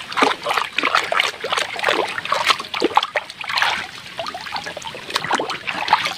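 Soapy water splashing and sloshing as a toy shotgun is scrubbed by hand in a tub, with water trickling off it as it is lifted; irregular and continuous.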